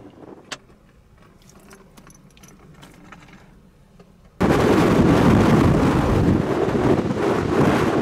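Faint, still outdoor ambience with a few small clicks. About four seconds in, strong gusting wind suddenly takes over, buffeting the microphone with a loud, continuous rushing noise.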